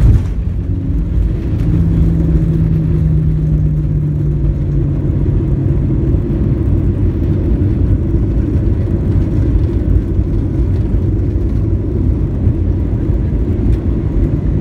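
Airliner cabin noise as the plane rolls down the runway after touchdown: a steady low rumble of wheels and engines, with a low hum that falls slightly in pitch a few seconds in.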